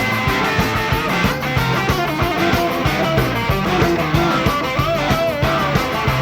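Live rock and roll band of two electric guitars, electric bass and drums playing an instrumental break, with a lead electric guitar bending and sliding notes over a steady, driving drum beat.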